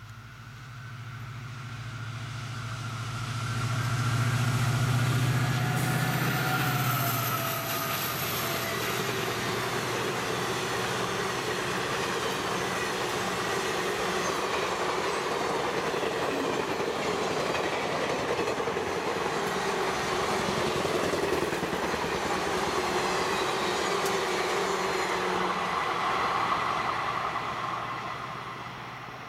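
WDP4D diesel-electric locomotive passing at speed, its engine hum loudest a few seconds in and dropping in pitch as it goes by. Then comes the steady noise of a long rake of passenger coaches rolling past on the rails, fading near the end as the last coach draws away.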